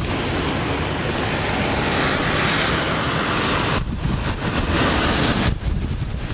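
Strong thunderstorm outflow wind and wind-driven rain rushing, with gusts buffeting the microphone as a low rumble. The rush swells loudest for a couple of seconds in the middle.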